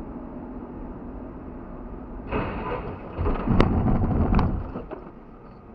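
Steady road rumble inside a moving car. About two seconds in, a loud crash of impacts and scraping starts and lasts a couple of seconds, with two sharp bangs in the middle, then it dies back to road noise.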